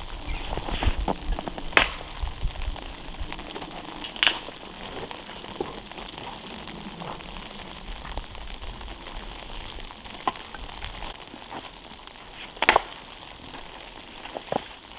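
Axe chopping and splitting wood on a chopping block: sharp, separate chops a few seconds apart, the loudest about two seconds in and near the end, with the crackle and rustle of handling the wood in between.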